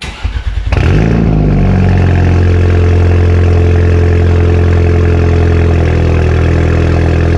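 2017 Audi A4 B9 engine cold-starting through an Armytrix valvetronic cat-back exhaust with its valves open and an 034 Motorsport racing catalyst. A brief crank, the engine catches under a second in and flares up and back down, then settles into a loud, steady idle.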